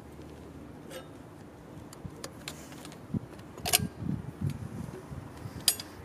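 Metal exhaust parts, a stainless silencer and its mounting bracket, clinking and knocking as they are handled. There are soft knocks in the second half, with two sharp clinks, one a little past halfway and one near the end.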